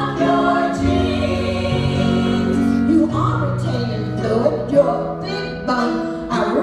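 Live music: a group of women singing together, accompanied by a band.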